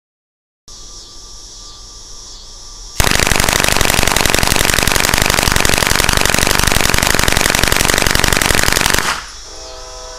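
An M11-type gun fed from a converted Suomi M31 drum magazine fires one long, rapid, continuous string of shots lasting about six seconds. The fire starts and stops abruptly. It is a test of the converted drum's feeding.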